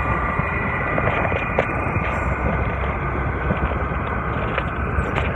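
Steady rumble of wind on the microphone and road noise on a moving motorbike in traffic.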